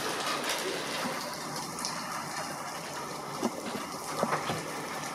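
Steady rain falling, an even hiss with a few sharper taps of drops scattered through it.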